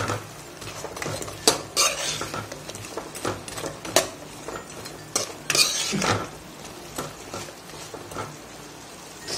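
A metal spatula scrapes and knocks against a non-stick pan while fried vegetable Manchurian balls are tossed in sauce, the strokes coming irregularly with sharper knocks about 1.5 and 4 seconds in. A faint sizzle from the hot sauce runs underneath.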